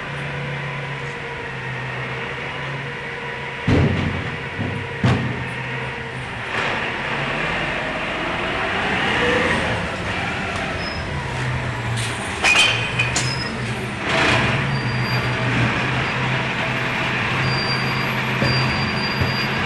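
Refuse collection truck running with a steady low engine hum. Several sharp clanks and bangs sound over it, two a few seconds in and a louder cluster past the middle, as wheeled bins are handled and tipped.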